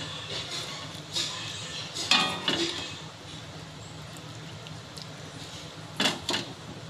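Metal ladle clinking and scraping against a steel wok as hot soup is scooped out and poured into a bowl. There is a knock about a second in, a cluster of clinks about two seconds in, and two more near the end, over a steady low hum.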